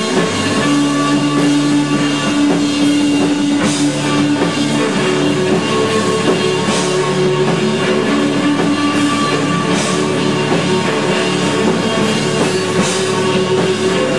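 Live rock band playing: guitars and bass hold long droning notes over drums, with a loud hit about every three seconds.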